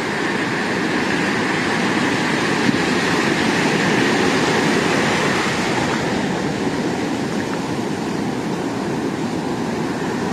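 Sea surf washing steadily, swelling slightly mid-way and easing again.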